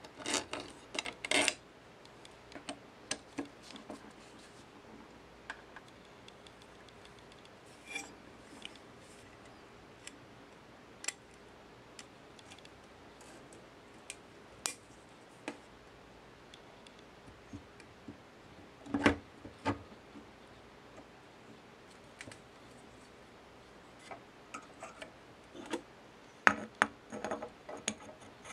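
Metal housing parts of a Hitachi Koki electric polisher being handled and fitted together during reassembly: scattered light clicks and taps, with louder clusters of knocks about a second in, about two-thirds of the way through, and near the end.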